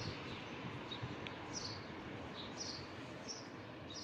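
A small bird chirping repeatedly, short high chirps coming about once or twice a second, over steady background noise.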